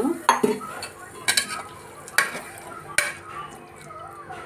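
Metal ladle stirring a watery vegetable curry in an aluminium pressure cooker, with three sharp knocks of the ladle against the pot about a second apart.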